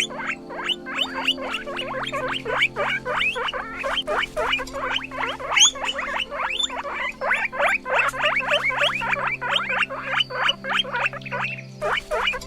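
Guinea pig squeaking in a rapid, continuous run of short, sharp squeaks, several a second, over background music.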